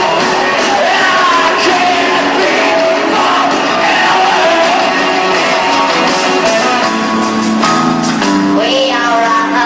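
Live rock band playing loudly, with a singer's voice over the music.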